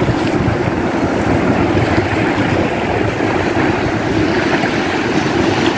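Wind rumbling on the microphone over surf washing onto a sandy beach, a steady loud noise.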